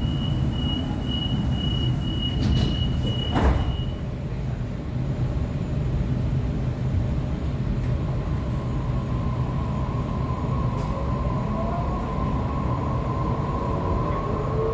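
Sydney Trains Waratah electric multiple unit running, heard from inside: a steady low rumble with a steady high tone for the first four seconds and one sharp knock about three and a half seconds in. From about eight seconds a whine sets in, and near the end several tones rise together as the traction motors pick up speed.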